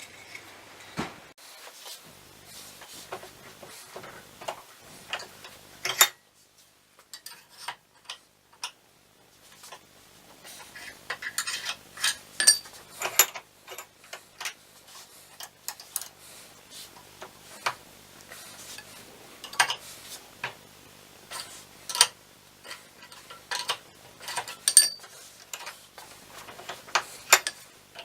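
Irregular small metallic clicks and clinks from steel wire and a metal rod being handled while a spring is made. They are sparse for a few seconds near the start and come thick and fast through the second half.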